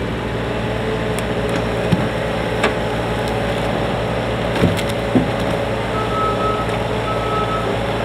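Bobcat compact track loader's diesel engine running steadily as it brings a grapple load of logs to the pile, with a few sharp knocks of wood on wood, loudest about five seconds in as the logs are dropped. Near the end its reversing alarm beeps twice.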